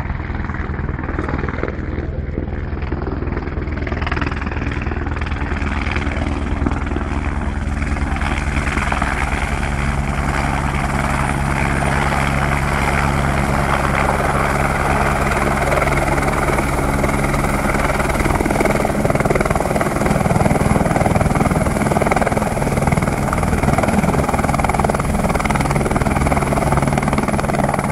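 Single-engine AS350 Écureuil helicopter coming in to land: its rotor and turbine run steadily and grow louder as it nears, hovers and sets down on the pad.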